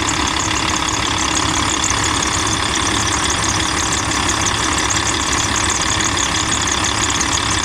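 Volvo D12 inline-six diesel idling steadily with a high-pitched whistle from the accessory drive belt. The whistle persists after anti-squeak belt spray, and the owner puts it down to the belt rubbing on a pulley.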